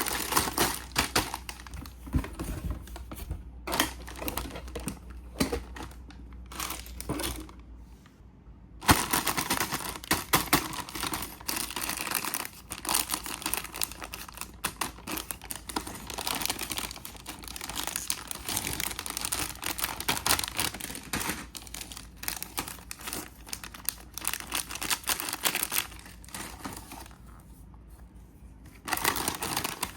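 Packaging being handled and opened: crinkling and tearing in irregular bouts, with small clicks, and brief lulls twice.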